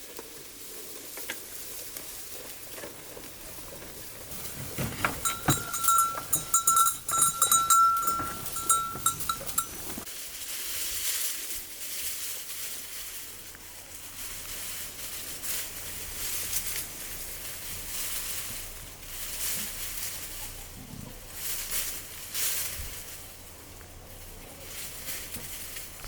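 Livestock bells clanking with a ringing tone, loudest for about five seconds starting near five seconds in, then fainter shuffling and rustling.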